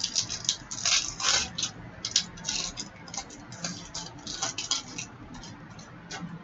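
Foil wrapper of an Upper Deck hockey card pack crinkling and tearing as it is opened and the cards are pulled out, in a quick run of short, crisp rustles that thin out near the end.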